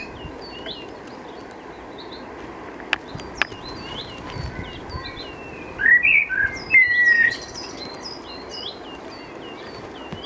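Songbirds calling outdoors: a short high chirp repeated about twice a second throughout, two sharp clicks about three seconds in, and a louder warbling phrase about six seconds in.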